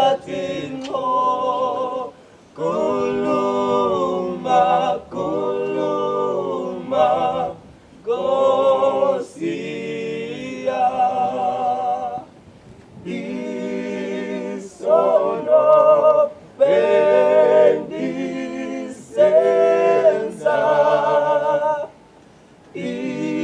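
A small group of male voices singing a cappella in harmony, in phrases broken by short pauses every few seconds.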